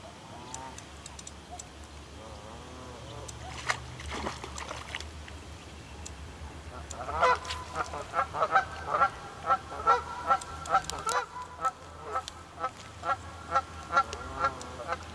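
Geese honking over and over, about two calls a second, through the second half. A short noise sounds about four seconds in.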